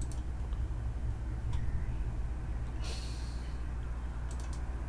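A steady low hum with a few faint, sharp clicks and one short breath, like a sniff or exhale, about three seconds in.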